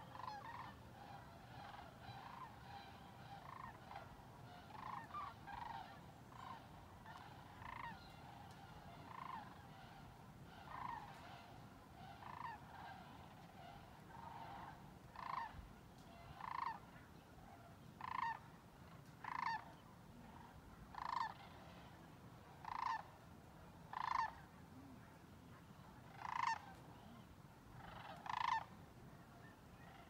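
Sandhill crane flock calling: many distant calls blend behind a closer bird whose calls come louder and more regularly in the second half, roughly one every second and a half.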